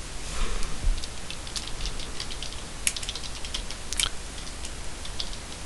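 Typing on a computer keyboard: a quick, irregular run of light key clicks, with a couple of louder keystrokes about three and four seconds in.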